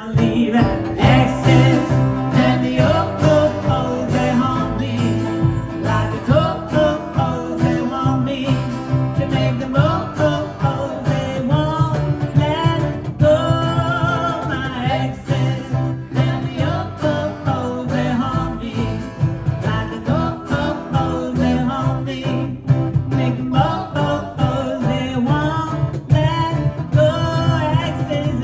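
Live acoustic cover band playing: a woman sings lead, with vibrato, over strummed acoustic guitars, an electric lead guitar and a steady cajon beat.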